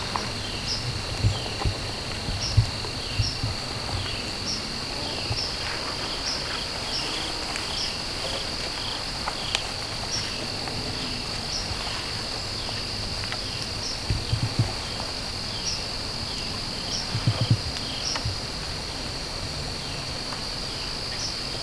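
Insect chorus: a steady high trill, with a short chirp repeating about once a second, and a few soft low thumps.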